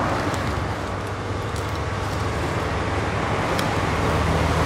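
Steady rumble of road traffic with a low engine hum, growing slightly louder near the end, with a few faint light clicks.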